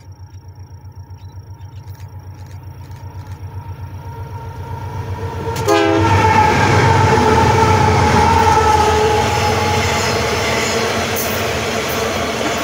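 Heavy freight train of GE AC44i and Wabtec ES44ACi diesel-electric locomotives approaching with a pulsing engine rumble that grows steadily louder. The train passes close by suddenly about halfway through, loud, with a high steady tone sounding over the noise for a few seconds. Then the loaded iron-ore wagons roll past on the rails.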